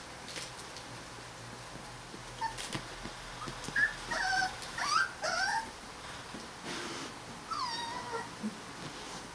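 Three-week-old Rottweiler puppies squeaking and whining in short high-pitched cries that slide up and down, in a cluster from about two and a half to six seconds in, then one longer falling whine about eight seconds in.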